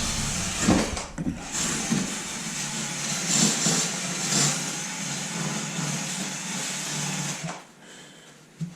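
A machine's motor running steadily, then stopping about seven and a half seconds in.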